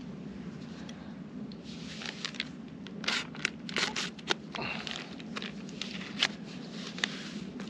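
A foil boil-in-the-bag meal pouch crinkling and tearing as it is cut open with a knife. It makes a run of irregular crackly rustles that begin about a second and a half in and are busiest in the middle.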